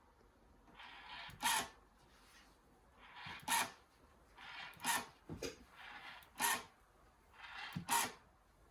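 Rotary telephone dial being turned and released digit by digit: each digit gives a short whirring rasp of the dial ending in a sharp click, about five times, roughly one every second and a half.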